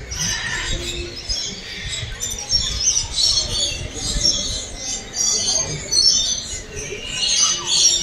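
Many small birds chirping and twittering at once in a dense, continuous chorus of short high calls, over a low rumble.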